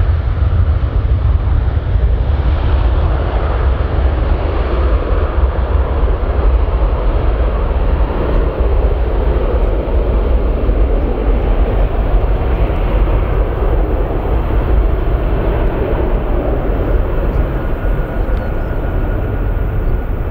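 Boeing E-3A Sentry's four Pratt & Whitney TF33 turbofan engines at high thrust on the takeoff roll: loud, steady jet engine noise with a deep rumble as the aircraft rolls away down the runway, easing a little near the end.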